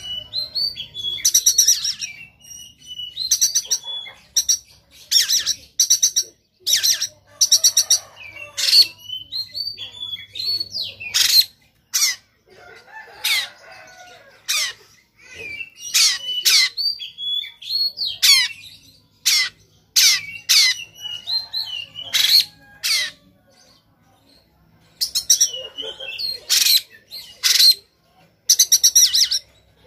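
Oriental magpie-robin singing loudly in varied phrases: fast rattling trills of repeated sharp notes, quick rising whistles and chattering calls, with a short pause a few seconds before the end. The harsh rapid-fire notes are what keepers call 'tembakan', the sign of a bird singing at full heat, as if to fight.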